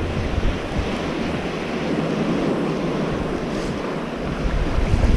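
Small surf washing up on a beach, with wind buffeting the microphone in gusts and a heavier gust near the end.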